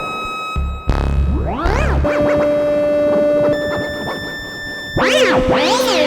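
Make Noise 0-Coast synthesizer with a Roland AIRA Scooper playing electronic tones: a deep bass drone in the first two seconds, then steady buzzy notes that change pitch about halfway through. Near the end, fast swooping glides rise and fall over a held note.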